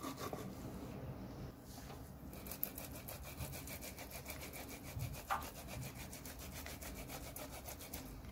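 Oven-baked carrot being rubbed over the fine side of a flat stainless-steel grater, a quiet rasping scrape with quick, even strokes.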